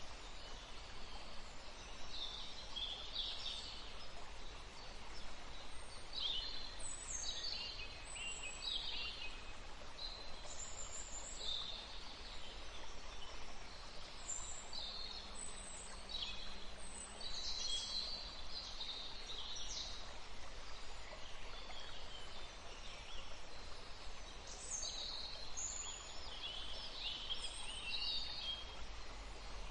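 Several birds chirping and trilling in short high calls throughout, over the steady rush of a flowing river.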